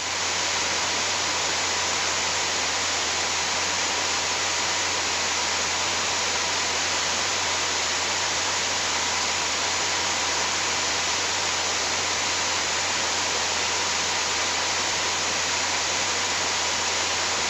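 Steady, even noise of a Cessna 182's engine and airflow heard inside the cabin in cruise flight, fading up in the first moment and then holding constant.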